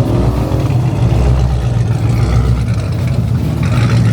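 Car engine running loudly and steadily.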